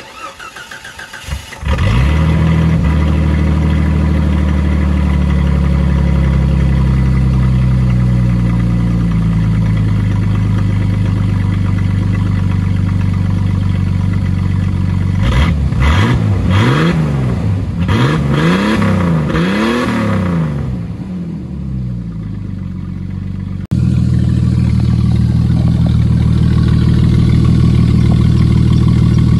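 Jeep Cherokee XJ 4.0-litre inline-six, its muffler cut off so the exhaust runs straight-piped, cranking and catching about two seconds in, then idling with a loud, deep exhaust. Past the middle it is revved several times in quick succession, each rise and fall clear, then drops back to idle; about three-quarters through the idle suddenly jumps louder again.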